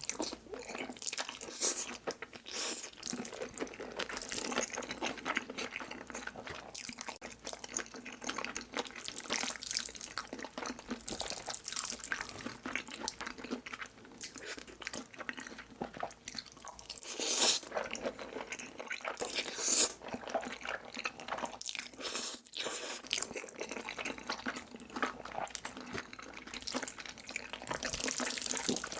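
Close-miked eating of Korean hot noodles: wet slurping and chewing mouth sounds, a dense run of small sticky crackles with a few louder slurps partway through.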